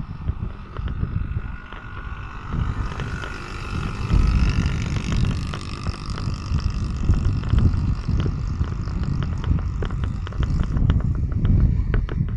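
Traffic noise heard from a moving vehicle on a city road: a heavy low rumble of wind buffeting the microphone, and an engine whine that rises in pitch between about two and six seconds in. Rapid clicks and rattles come through in the last few seconds.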